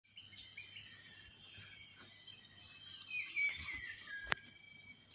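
Outdoor ambience of insects trilling steadily at a high pitch, with birds calling. A little after three seconds in, one bird call falls in pitch, and a sharp click comes about four seconds in.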